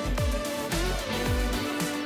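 Electronic outro music with a steady beat and deep bass notes that slide down in pitch.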